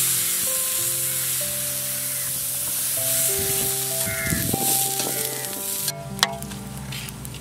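Maggi noodle and egg omelette sizzling as it fries in a hot pan, with a few spatula scrapes about halfway through; the sizzle stops abruptly about six seconds in. Soft background music plays underneath.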